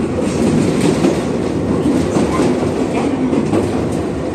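Chichibu Railway electric local train running between stations, heard from inside the car: a steady rumble of wheels on rails with light clicks from the track.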